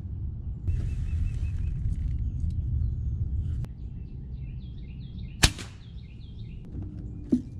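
A single sharp shot from an AirForce precharged (PCP) air rifle about five and a half seconds in. Birds chirp just before it.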